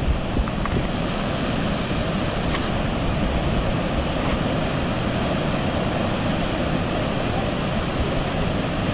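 Niagara's Horseshoe Falls pouring, a steady, unbroken rush of falling water heard from the overlook above.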